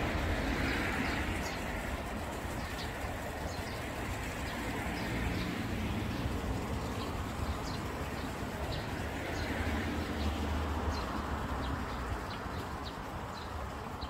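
Small birds chirping in many short, high calls over a steady background murmur of a crowd and a low rumble.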